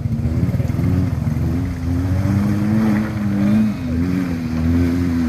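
Diesel truck engine pulling hard under load up a steep hill, its speed rising and dipping a little.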